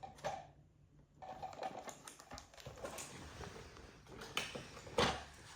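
Scattered clicks, taps and rustling of a newly unpacked part being handled, with a few sharper clicks about four and five seconds in.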